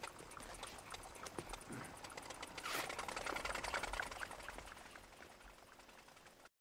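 A VéloSoleX moped, its small engine over the front wheel, moving off and away: a fast run of fine ticks that grows louder about three seconds in, then fades out.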